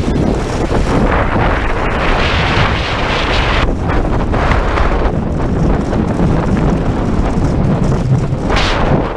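Wind buffeting the microphone of a body-worn camera while skiing across snow, a heavy, uneven rumble, with surges of hiss from skis sliding over the snow crust.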